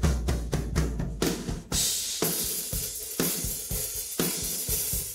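Isolated drum stem from a rock drum kit's cymbal, tom and room-ambience microphones. A quick run of drum strokes, about four a second, gives way about two seconds in to a crashing cymbal wash that rings on, with the beat striking about once a second.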